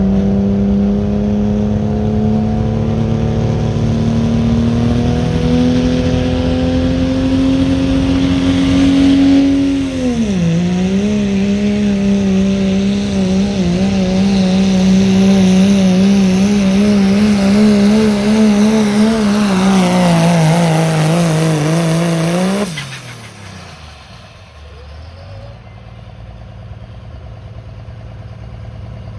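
Diesel pickup engine at full throttle, dragging a pulling sled down the track. The note climbs steadily for about ten seconds, dips, then holds high with a wavering pitch. About 23 seconds in the throttle is cut suddenly, leaving a much quieter, low engine sound.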